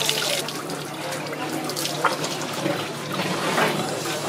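Water running from a hose onto a fish and a wet wooden cutting board, strongest for the first half second and then trickling more softly. There is one sharp knock about two seconds in.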